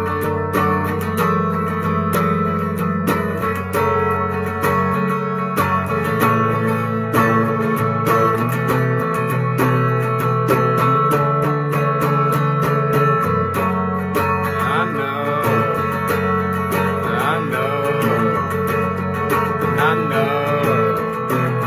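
Electric guitar with a capo, played with a pick: a melody over sustained low notes that change every few seconds.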